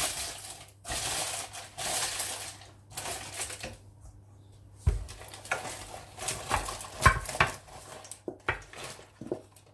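Baking parchment being crumpled and rustled, in several bursts. Then a knock and a run of clicks, clinks and scrapes as grated-carrot-and-oat mixture is tipped and scraped out of a stainless steel bowl into a parchment-lined glass baking dish.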